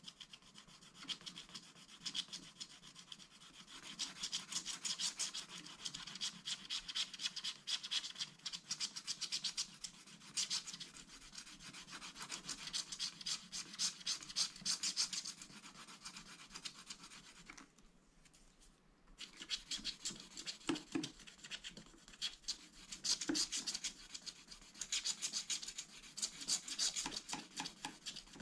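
Scratching the black coating off a glittery scratch-art card in quick, dense back-and-forth strokes, with a pause of about a second and a half about two-thirds of the way through.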